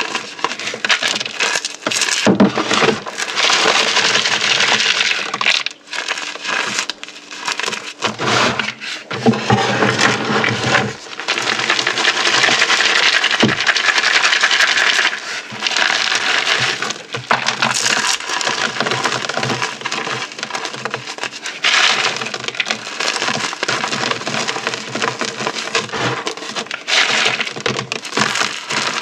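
Dried orbeez hydrogel beads and chalk being crushed: a dense run of crunching and crackling with many sharp cracks, broken by a couple of short pauses.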